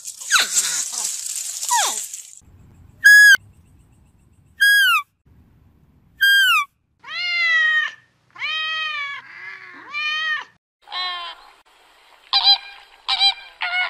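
A run of animal sounds. First a hedgehog snuffles and huffs with a hissy breath. Then come three short, high calls that drop in pitch, spaced about a second and a half apart, and a few longer nasal calls. Near the end a flock of flamingos honks three times in quick succession.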